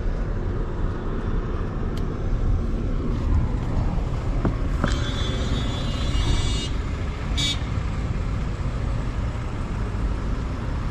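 Lexus LX500d's twin-turbo diesel V6 idling with a steady low rumble, with a few sharp clicks and a brief high-pitched buzzing tone about five seconds in.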